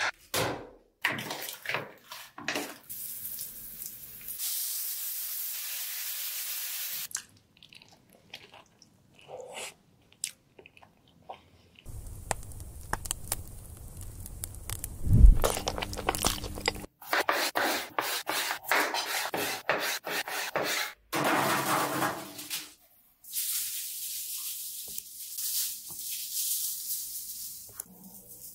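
A sequence of food-preparation sounds: clicks and taps, stretches of steady hiss, and one heavy thump about halfway. Near the end, salt is sprinkled in a light, steady patter over raw potato wedges on baking parchment.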